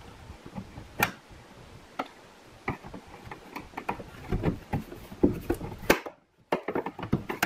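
Irregular sharp clicks and knocks of a plastic trim panel tool prying plastic push-pin retainers out of a Ram 1500's hood insulation liner, with several clicks in quick succession near the end.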